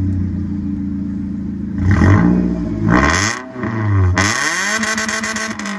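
A 2007 Toyota Camry's 2.4-litre four-cylinder engine, running with its muffler deleted, so the raw exhaust note comes straight out. It idles steadily, then is revved three times, starting about two seconds in, with the last and longest rev near the end.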